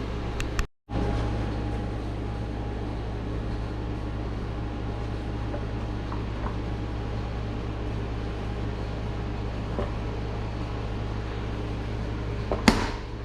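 Steady low machine hum, like a fan or air-conditioning unit running, broken by a few light clicks and one sharp clack near the end. The sound drops out completely for a moment under a second in.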